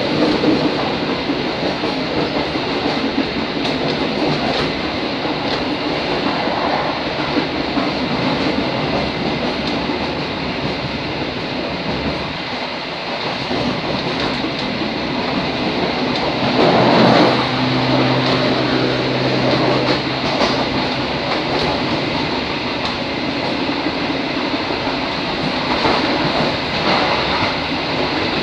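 Diesel railcar running along the track: a steady rumble of wheels on rails and engine, with rail-joint clacks. A little past the middle comes a brief louder swell, followed by a steady low hum for about three seconds.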